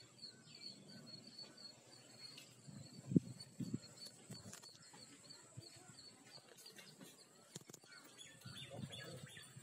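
Faint rural outdoor ambience: birds chirping over a steady, high-pitched pulsing drone, with a couple of short low bumps on the microphone about three seconds in.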